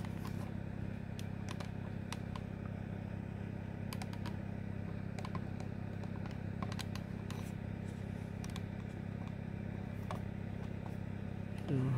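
Light plastic clicks of a thumb pressing the buttons of an Aiwa RX308 cassette walkman, scattered over a steady low hum. A short, louder wavering tone comes in near the end.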